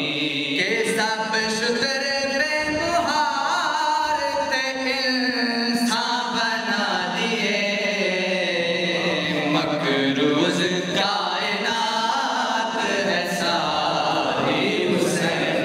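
Male voices chanting an Urdu devotional qasida into a microphone, with long held, melodic sung lines.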